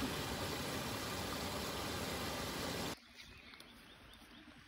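Small woodland stream splashing over a low rocky cascade, a steady rush of water that cuts off suddenly about three seconds in. After that only faint, quiet outdoor background is left, with a few light ticks.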